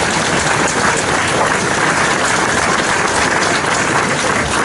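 Crowd applauding: dense, steady clapping from many people.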